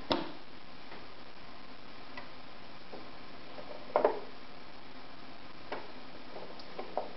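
Small scattered clicks and taps from hands handling the thread and needle area of a household sewing machine during hand threading, the machine itself still. A sharp click comes right at the start and the loudest, a quick double click, about four seconds in, with a few fainter ticks after.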